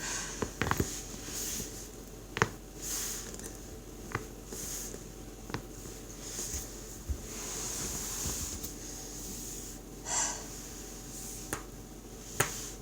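Joints in a person's back cracking: sharp single pops at irregular intervals, the loudest a little over two seconds in and near the end, with breathy exhales between them.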